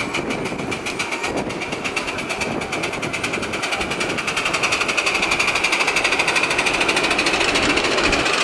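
Miniature railway passenger train running past on its track: a rapid, even clatter that grows louder about halfway through as it draws level.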